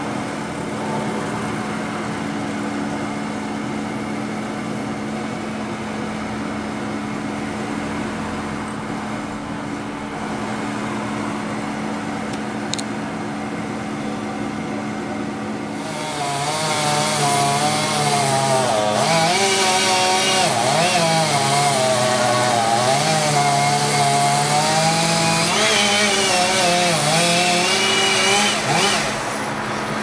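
A steady engine hum, then about halfway through a chainsaw comes in loud, its pitch wavering up and down as it is revved through the cut, until it drops away shortly before the end.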